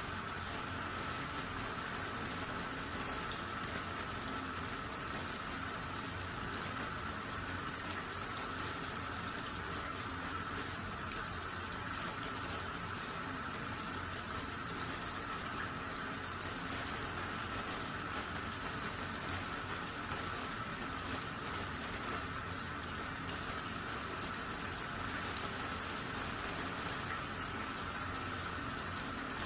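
Water running steadily with a fine crackle of spatter and no breaks.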